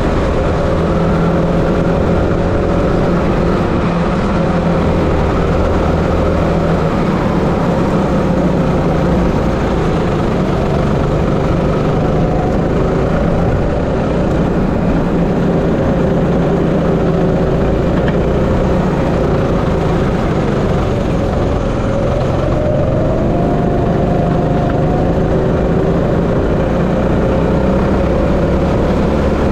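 16 BHP rental go-kart engine running under way at speed, its pitch drifting with the throttle and rising a little about three quarters of the way through.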